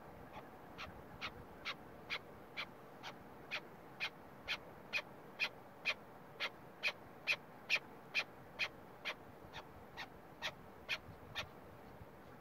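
Chukar partridge calling: a long run of short, sharp chuck notes repeated a little over twice a second, swelling in loudness toward the middle and easing off near the end.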